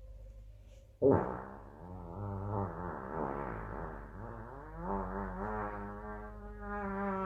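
A strange comedic sound effect: a long, drawn-out pitched tone that wavers up and down, starting suddenly about a second in.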